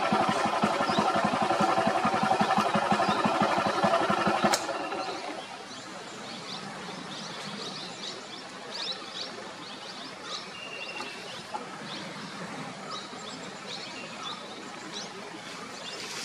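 A vehicle engine idling with a fast, even throb, cut off abruptly about four and a half seconds in. After that, birds chirp in short high calls over a quiet background.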